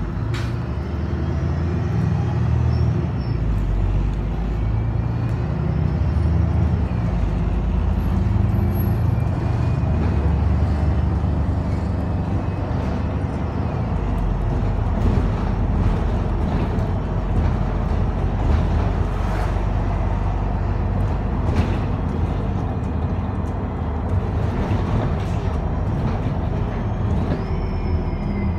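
MAN Lion's City city bus heard from inside while it drives: steady engine and road noise, with scattered light rattles and knocks from the body and fittings.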